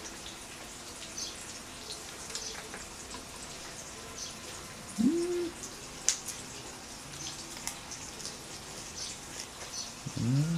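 Pork belly sizzling on a tabletop grill, with scattered small pops and crackles of spitting fat. A short hummed "mm" comes about five seconds in, and another near the end.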